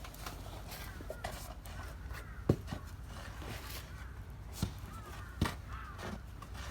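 Dry fish-feed ingredients (fish meal, milk powder and vitamins) being stirred together by hand: irregular rustling and scraping, with a few sharp knocks, the loudest about two and a half seconds in.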